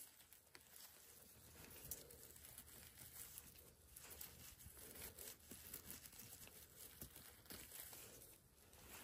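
Near silence with faint rustling and scattered soft crackles.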